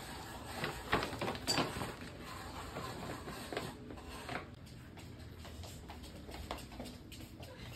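A plastic pet-food bag crinkling and rustling over a Shiba Inu's head as the dog licks inside it and moves about, with the dog's claws ticking on a wooden floor. The crackling is busiest in the first few seconds, then thins to scattered ticks.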